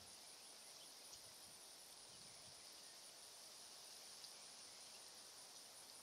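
Near silence: faint outdoor ambience with a thin, steady, high-pitched insect trill running throughout and a couple of faint ticks.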